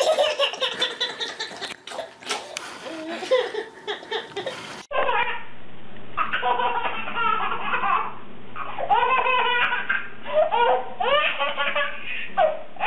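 A baby laughing hard in repeated fits. About five seconds in the sound cuts abruptly to another baby's laughter, in short bursts that rise and fall in pitch.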